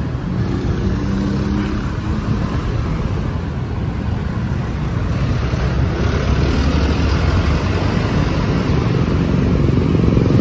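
Street traffic: car and motorcycle engines passing with road noise, growing louder in the second half as motorcycles come by.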